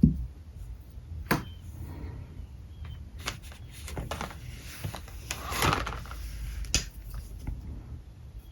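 Small hard objects being handled on a drawing desk: scattered sharp clicks and knocks, a few seconds apart, with a short scuffing rub a little over halfway through, over a low steady hum.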